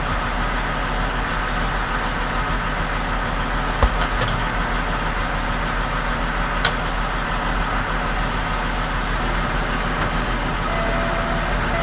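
Kenworth semi truck's diesel engine idling steadily while parked, with two light clicks about four and seven seconds in.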